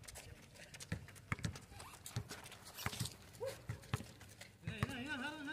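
Basketball bouncing on an outdoor concrete court, mixed with players' footsteps: a run of irregular thuds. A man's voice calls out briefly near the end.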